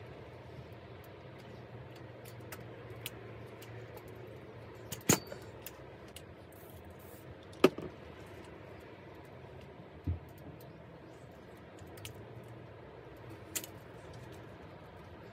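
Scattered sharp clicks and light knocks of small handlebar parts (grips, shifters, bar ends) being handled and fitted on a mountain bike. The two loudest clicks come about 5 and 7.5 seconds in, with a duller knock about 10 seconds in, over a steady low background rumble.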